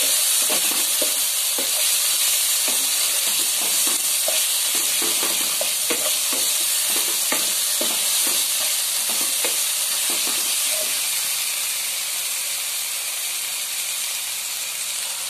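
A masala of tomato, onion and ginger-garlic paste sizzles steadily in oil in a non-stick pan. A wooden spatula stirs it with frequent short scrapes and taps against the pan, and the sound eases a little near the end.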